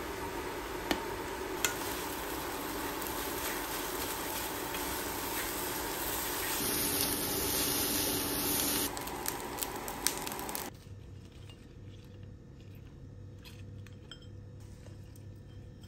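Kitchen utensils scraping and clinking against a non-stick pan as fried rice is tossed and stirred, over a steady hiss and with a few sharp clicks. About two-thirds of the way in, the sound cuts off abruptly to a much quieter background.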